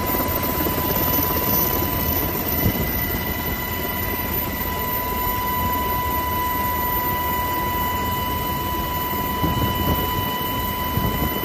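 Helicopter heard from inside its cabin with the side door open: steady engine and rotor noise with a high whine over it.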